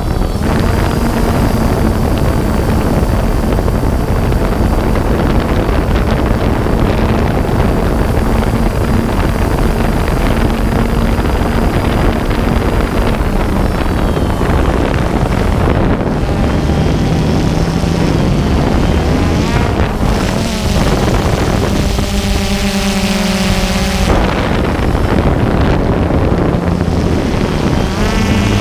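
DJI Phantom 2 quadcopter's motors and propellers humming steadily, heard from the camera on board with heavy wind noise on the microphone. Past the middle the motor tones shift up and down in pitch as the motor speeds change.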